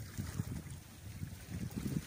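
Wind gusting against the microphone over the steady wash of the sea, in uneven low rumbles.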